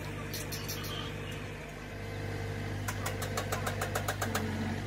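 A steady machine hum, with a few sharp clicks near the start and a quick run of about a dozen sharp taps, about eight a second, around three seconds in.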